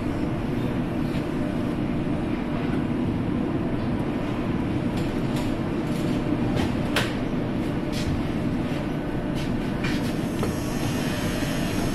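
Düsseldorf Airport SkyTrain suspended monorail car running along its track, heard from inside the cabin. It makes a steady drone, with a scatter of sharp clicks from about five to ten seconds in.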